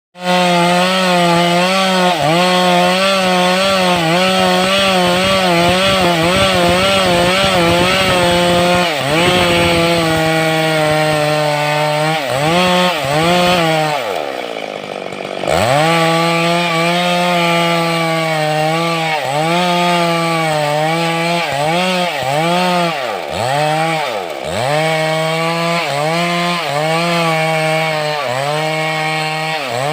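Stihl two-stroke chainsaw running at high revs while cutting teak wood; the engine pitch wavers constantly under load. About halfway through the pitch falls away steeply and climbs back, then dips briefly several more times near the end.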